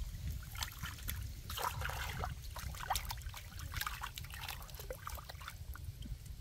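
Water splashing and dribbling as a whole plucked chicken is dipped and rinsed by hand in open water: irregular small splashes and drips, busiest in the middle.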